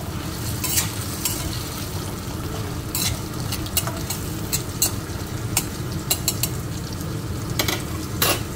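Metal spatula scraping and clinking against a stainless steel kadai as chunks of taro are stirred, with irregular sharp clinks over the steady sizzle of the taro frying in oil.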